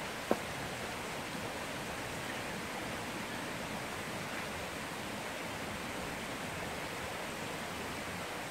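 Steady, even rushing noise outdoors, with one short sharp click about a third of a second in.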